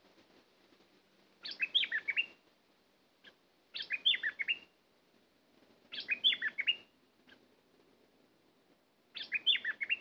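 A bulbul sings a short phrase of quick falling whistled notes four times, with a pause of a second or two between phrases.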